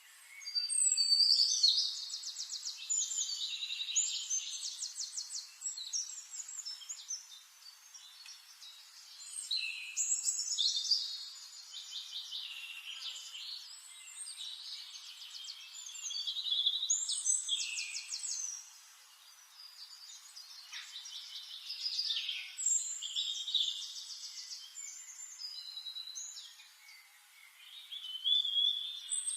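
Forest songbirds singing, in bursts of quick trilled phrases that come every several seconds, with quieter chirping between them.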